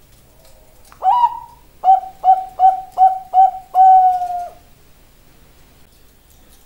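Bangkok-type zebra dove (perkutut) cooing one phrase: a single opening note about a second in, then a quick run of five short notes, ending on one longer held note.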